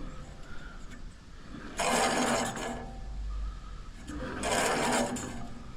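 Sawmill band wheel and belt turning in two short bursts of mechanical whirring and rubbing, each about a second long, while the thrown belt's tracking is checked.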